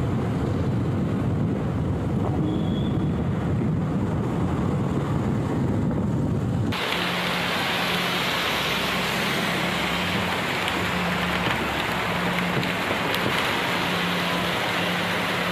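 Heavy rain on city streets with traffic: a deep, low rush of downpour, then an abrupt cut about seven seconds in to a brighter hiss of rain and tyres on wet road, with a steady engine hum that comes and goes.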